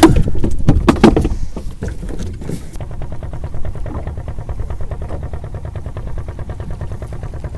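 A boat engine running steadily with an even, fast pulse. Loud rough noise, like wind buffeting or handling, covers it for the first two and a half seconds.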